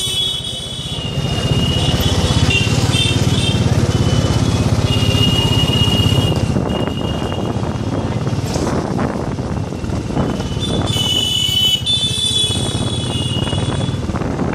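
Motorbike engine running underway, with vehicle horns honking for a few seconds near the start and again about eleven seconds in.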